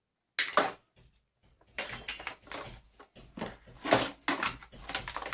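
Vacuum cleaner parts being handled and pulled apart by hand. A sharp clack comes about half a second in, then a run of irregular plastic-and-metal knocks and rattles from about two seconds on.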